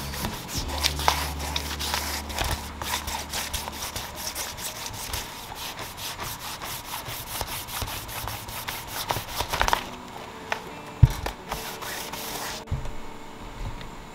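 Hand wet-sanding: 1500-grit sandpaper on a sanding pad, rubbed back and forth in rapid strokes over the varnish of a wood dash panel to level it to a uniform dull finish. The rubbing stops about ten seconds in, and a single knock follows a second later.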